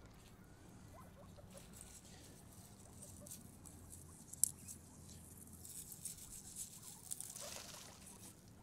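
Faint pattering, small clicks and soft rustling of guinea pigs moving about, with one sharper click about four seconds in.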